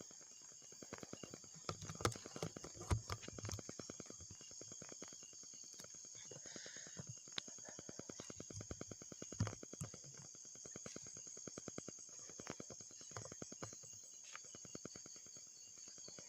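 Crickets and other night insects trilling in a steady high chorus, over a dense run of fast, even ticks. A few louder knocks come about two, three and nine and a half seconds in.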